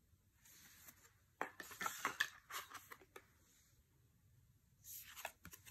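Tarot cards being handled: a soft slide of card stock, then a run of light taps and clicks as cards are turned over and laid down, and another soft swish near the end.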